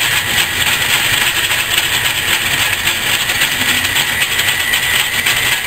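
Old metal lathe running steadily at speed with a freshly cut steel gear spinning on an arbor: a loud, even whir and hiss with a constant high whine.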